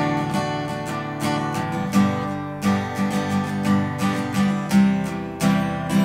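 Strummed acoustic guitar playing chords, an instrumental break between sung verses, with the chord changing about two seconds in and again near the end.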